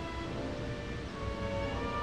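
Background music of slow, held notes, several sounding together and changing about once a second.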